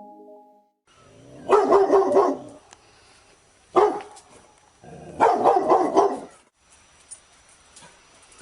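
Labrador retriever barking in bouts: a quick run of barks, a single bark, then another quick run of barks.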